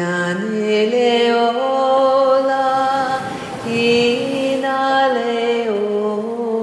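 A woman's voice singing slow, long-held notes without words, stepping up and down between a few pitches, with a short break for breath near the middle.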